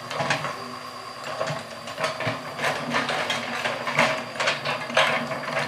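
Hydraulic excavator running, with a steady engine hum under many irregular metallic clanks and knocks that come thicker in the second half.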